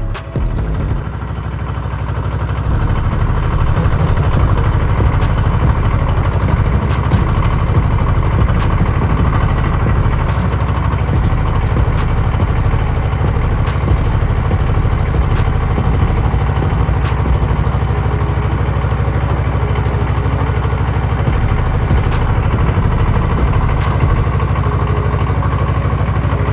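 An engine running steadily at idle: a rapid low throb that builds over the first couple of seconds and then holds even.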